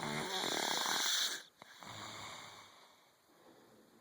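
A sleeping person snoring: one loud snore lasting about a second and a half, then a softer, lower breath.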